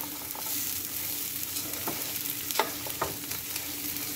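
Raw rice with dried fruit, nuts, onion and butter sizzling in hot oil in a pot as a slotted spatula stirs it, with a few sharp clicks of the spatula against the pot. The rice is being toasted until golden before the water goes in.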